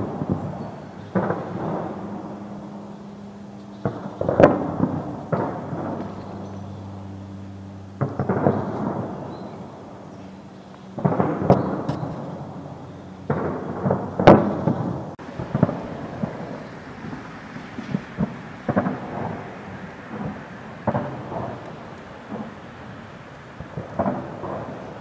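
Distant explosions and gunfire: a string of heavy booms, each with a long rumbling echo, the loudest about four and fourteen seconds in, then a quicker run of smaller bangs through the second half. A steady low hum runs under the first third.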